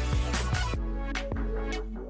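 Electronic intro music: a beat with deep bass under synth chords. The drum hits stop about three quarters of a second in, and the chords hold on.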